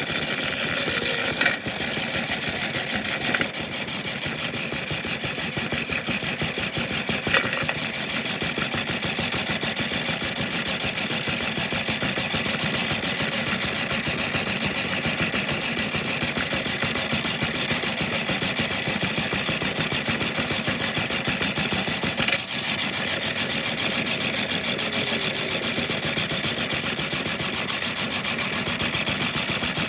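Washing machine running with a big rock in its drum: a steady mechanical drone with fast fine rattling, broken by a few sharp knocks, the first about a second and a half in and one more past the twenty-second mark.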